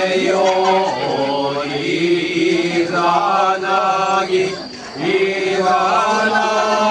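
Kagura chant: a voice singing long, drawn-out sung lines, with short breaks about two seconds and five seconds in.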